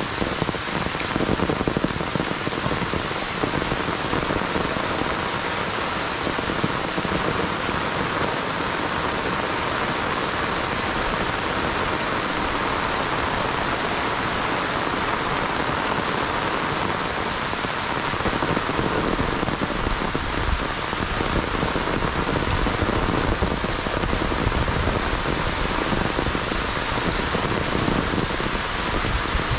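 Heavy monsoon rain, a steady downpour hissing on leaves and ground.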